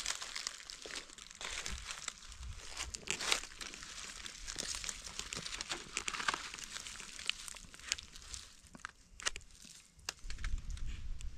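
Dry fallen leaves and undergrowth rustling and crackling in quick irregular ticks as a hand rummages through the leaf litter to pick a mushroom. The crackling thins out near the end.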